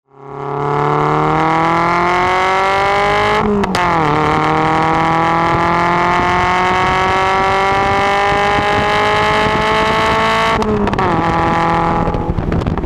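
Lotus Elise exhaust heard right at its twin tailpipes under hard acceleration: the engine note climbs steadily, drops sharply at an upshift a few seconds in, climbs again for about seven seconds, then drops at a second upshift near the end before fading.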